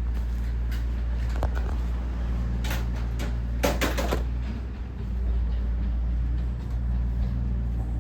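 Black Shiba Inu snoring with a low, steady rumble while being petted. A few rustling clicks from handling come about three to four seconds in.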